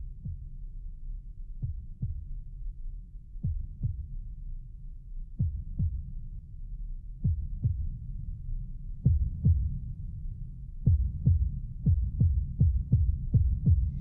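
Opening of a tekno track: a low bass drone under heartbeat-like double thumps that come about every two seconds. Near the end the thumps quicken into an even pulse of about three a second and grow louder.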